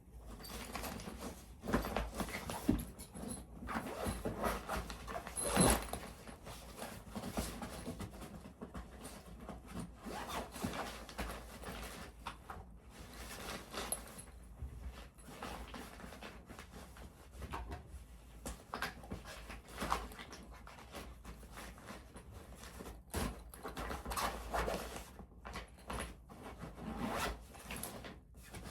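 Packing up bags by hand: zippers being drawn open and shut, with irregular rustling of clothes and bags and light knocks as items are handled.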